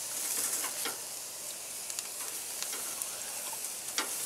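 Sauce-mopped elk ribs sizzling on a hot charcoal grill: a steady high hiss with scattered small crackles and pops, and a sharper click about four seconds in.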